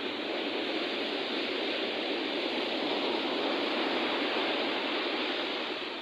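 Sea waves washing up on the beach: a continuous rush of surf.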